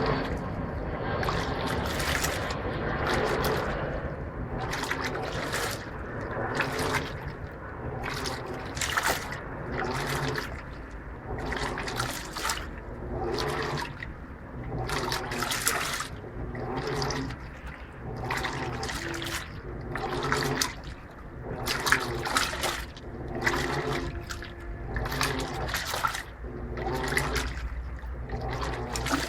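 Electrolux LTP15 top-load washing machine agitating a load of laundry in water, with a rhythmic swish-and-slosh about once a second as the agitator drives the clothes back and forth, over a low steady rumble.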